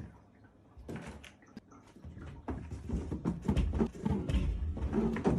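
Irregular soft knocks, clicks and rustling from objects being handled, with the taps coming closer together in the second half.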